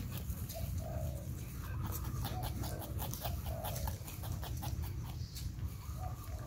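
Crested porcupine feeding close up, chewing fruit and vegetables: a rapid, irregular run of crunching clicks with short low sounds in between.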